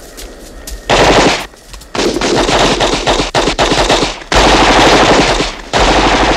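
Long bursts of rapid automatic gunfire, starting about a second in and broken by short pauses.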